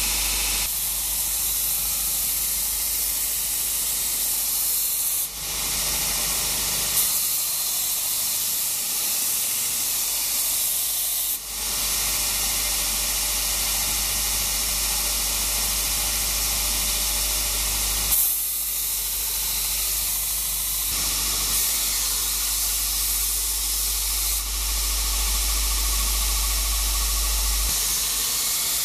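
Electric belt grinder running, its abrasive belt hissing steadily as a rusty steel cleaver blade is ground against it, with the motor's low hum underneath. The sound changes abruptly several times.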